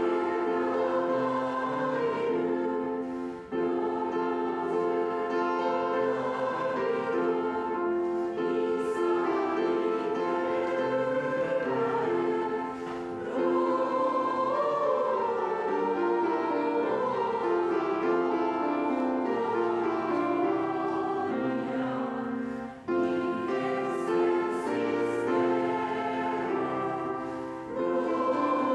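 A choir singing a Christmas hymn in sustained chords, with short breaks between phrases.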